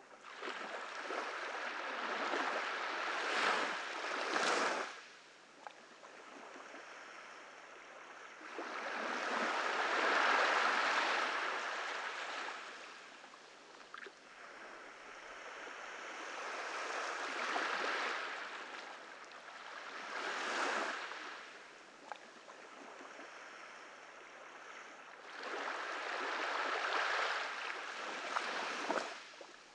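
Small ocean waves breaking and washing up a beach, in about five surges that each swell and fall away over a few seconds.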